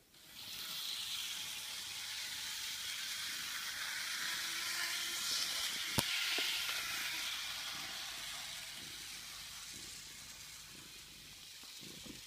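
A steady, steam-like hiss that starts suddenly, swells in the middle and fades near the end, with one sharp click about six seconds in.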